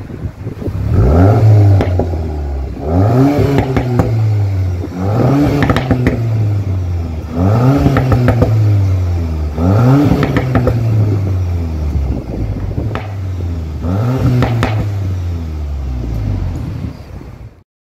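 Volkswagen Golf 8 R's turbocharged 2.0-litre four-cylinder revved repeatedly while standing still, through its quad-tailpipe exhaust. It rises and falls about seven times, with crackles as the revs drop.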